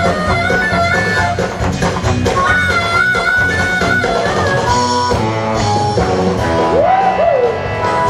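Rock music with guitar and a drum kit playing.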